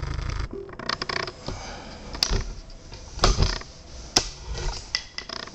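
Handling noise: scattered clicks and knocks of things being moved and set down, with three louder knocks about a second apart in the middle.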